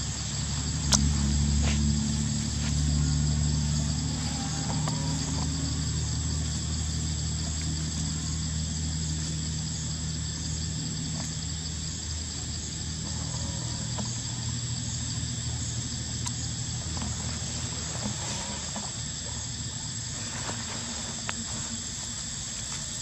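Steady high-pitched insect chorus, with a low steady hum under it that is strongest in the first half and fades away; a single sharp click about a second in.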